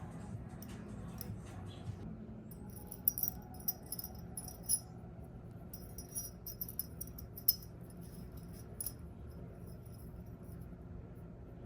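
Light metallic clinking and jingling of small metal parts being handled, in quick irregular clicks with a few sharper clinks between about three and eight seconds in, over a low steady background hum.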